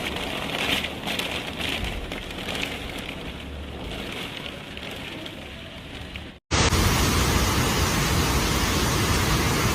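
Typhoon wind and heavy rain: an even, loud rush of noise, duller and thinner at first, then after a sudden cut about six seconds in, a louder and brighter rush.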